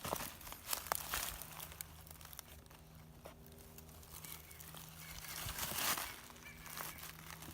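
Footsteps crunching through dry fallen leaves on a woodland floor. The crunches are loudest in the first second and again around six seconds in, with softer rustling between.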